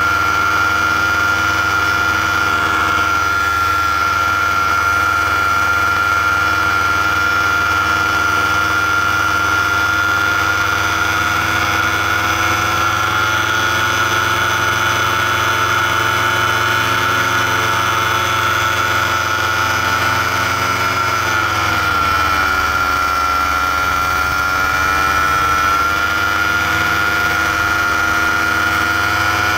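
Paramotor engine and propeller running steadily in flight; about three-quarters of the way through, the throttle is eased back and the pitch drops and settles lower.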